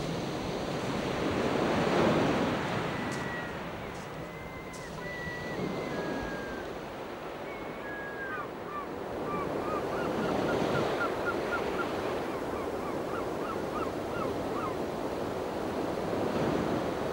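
Small sea waves breaking and washing on a shingle beach, the surf swelling louder about two seconds in and again a little past halfway.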